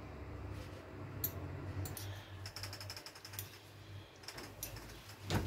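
Light clicks and taps of hands working fried eggplant halves in a pan, quickest about halfway through, over a low steady hum.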